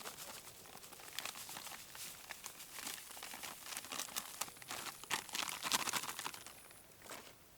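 Irregular crinkling and crackling, like something being handled and rustled, busiest about two-thirds of the way through and dying away near the end.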